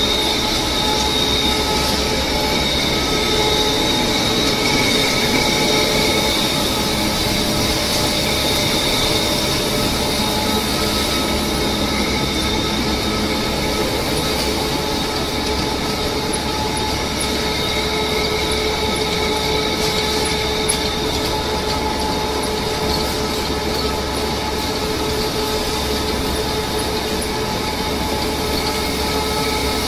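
Waste-tyre rubber powder production line machinery running: a steady mechanical din with several held, high whining tones on top.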